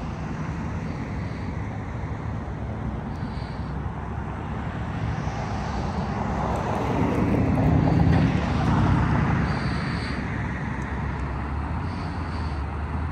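Road traffic: a vehicle drives past, growing louder to a peak about eight seconds in and then fading, over a steady low engine hum.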